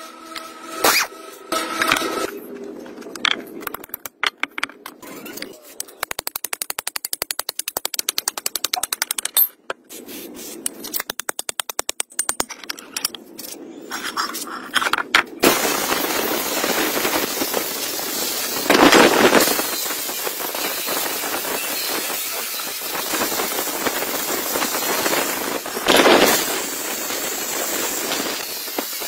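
A power tool on a socket extension rattles rapidly in long runs as it turns bolts on a rusty tractor hydraulic cover. About halfway through an angle grinder fitted with a wire cup brush starts and runs steadily, scrubbing rust off steel, with two louder surges.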